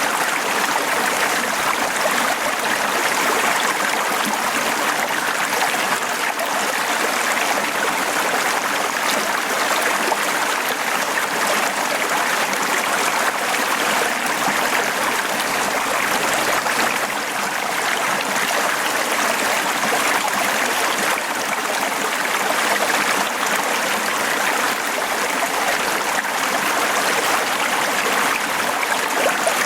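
Small mountain stream running over rocks: a steady, even rush of shallow water.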